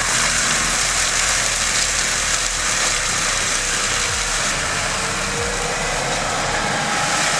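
Heavy machinery running steadily, a loud even rushing noise with a faint steady tone coming in partway through.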